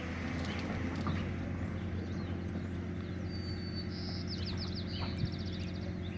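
Heavy engine running steadily at a constant low hum. A small bird sings briefly over it about three seconds in: a short whistle followed by quick trills.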